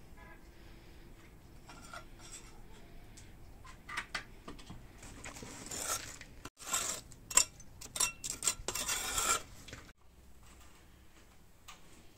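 Hot embers and ash being scraped out of a mud stove into a pan: a run of rough scraping and rasping strokes with a few sharp knocks, starting about four seconds in and stopping a couple of seconds before the end.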